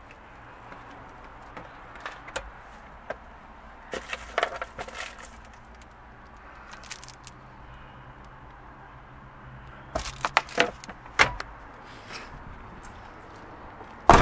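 Handling noises inside a van cabin: two clusters of clicks and crinkling, a little under half a minute's worth of rustle each, then a single sharp knock at the very end, over a steady low hum.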